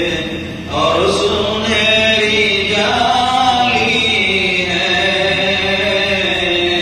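A man singing an Urdu naat solo and unaccompanied, drawing out long, ornamented notes, with a brief breath pause about half a second in.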